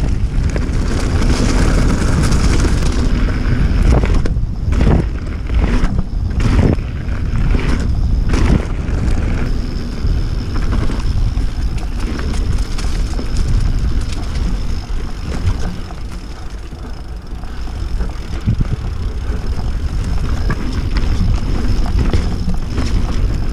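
Wind buffeting a bike-mounted camera's microphone, with the rumble and rattle of a YT Jeffsy mountain bike's tyres rolling fast over gravel and dirt.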